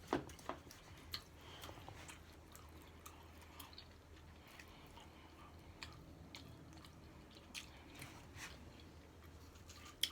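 Close-miked chewing of food, with scattered small wet mouth clicks and smacks.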